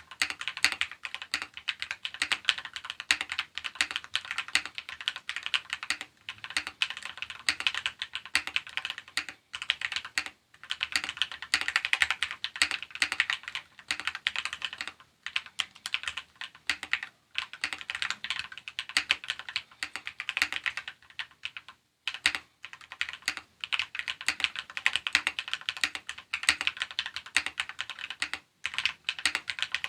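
Fast, continuous typing on an Akko ACR59 mechanical keyboard modded with lubed switches, lubed band-aid-modded stabilizers, a PE foam case mod and a tape mod. The keystrokes come thick and steady, with a few short breaks.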